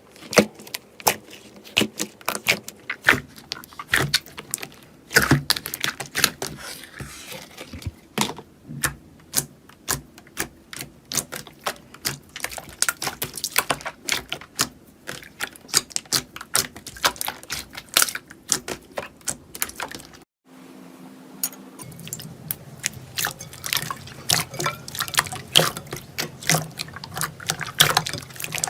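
Slime being squished and pressed by hand: a dense, irregular run of wet clicks and pops. It breaks off for a moment about twenty seconds in, then carries on.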